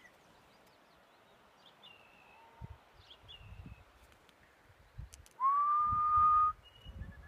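One long whistled note, sliding up briefly and then held on one steady pitch for about a second, the loudest sound here. Before it come a few short, falling bird chirps.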